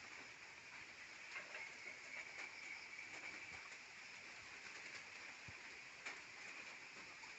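Faint farmyard ambience with free-ranging chickens: a steady high hiss with scattered soft ticks and faint bird sounds.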